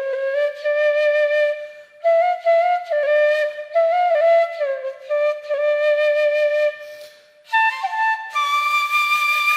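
Background music: a flute playing a slow melody in short phrases, rising to higher, longer-held notes near the end.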